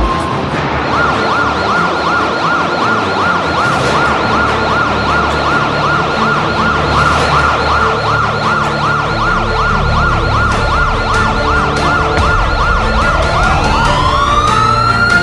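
Electronic siren yelping, its pitch sweeping quickly up and down about three times a second, then changing to a slow rising wail about twelve seconds in, over a steady noisy background.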